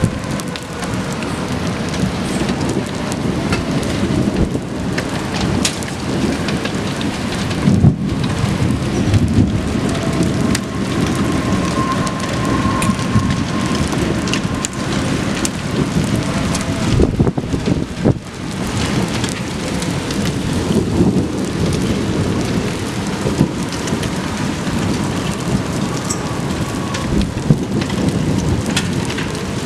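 Heavy rain pouring steadily during a thunderstorm, with thunder and a few sudden cracks about 8 and 17 seconds in. A faint outdoor warning siren rises and falls in the background.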